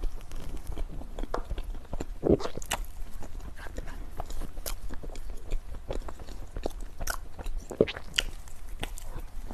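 Close-miked eating: biting and chewing dessert, with irregular crisp crunches and mouth clicks, the loudest a little over two seconds in and again near the end.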